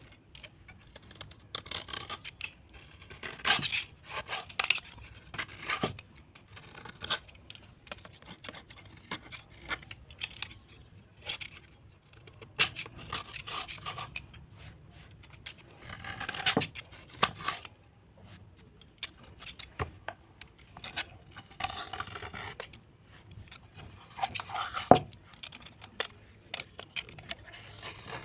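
Irregular scraping and scratching strokes with sharp clicks as soaked white slate or clay pieces are cleaned by hand. There is a loud click near the end.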